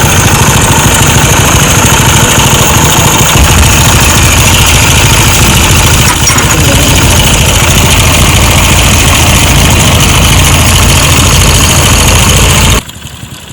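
Vehicle engine idling loudly and steadily, the engine noise that is being shown as a problem; the sound drops away sharply near the end.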